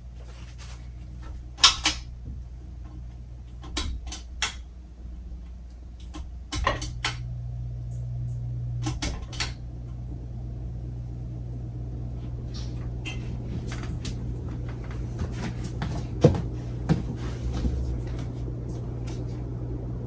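Hunter Original ceiling fan running with a steady low motor hum, broken by several sharp clicks in the first half. The hum shifts about a third of the way in, and a rushing air sound grows slowly louder through the second half.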